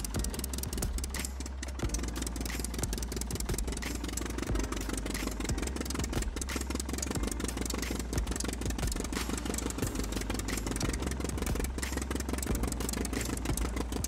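Engine sound of a radio-controlled model tractor running steadily, with dense rapid clicking over a low rumble.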